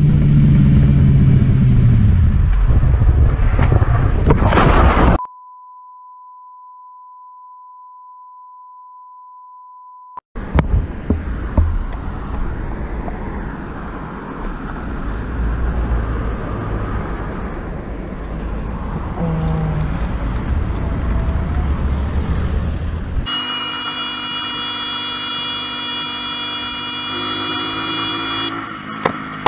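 Motorcycle engine running hard with its pitch falling away, cut off by a steady single-pitch bleep tone lasting about five seconds. Then motorcycle riding noise with sharp knocks and clatter, and from about 23 s a long held vehicle horn.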